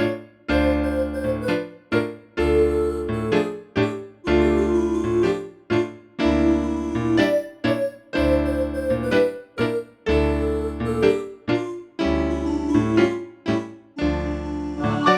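A built-in ringtone of the ZTE Cute (N281) mobile phone playing: a synthesized keyboard tune over a low bass line, in short phrases with brief gaps.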